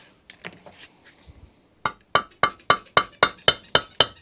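Rapid hammer taps, about four a second, starting about two seconds in, each with a short metallic ring: the steel shaft of a Ransomes Ajax cylinder mower's roller being drifted down into the roller until it seats.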